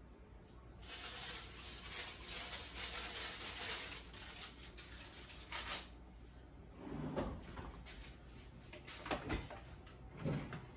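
Handling at a kitchen oven and stove: a rustling hiss lasting several seconds, then a few scattered knocks and clunks of cookware.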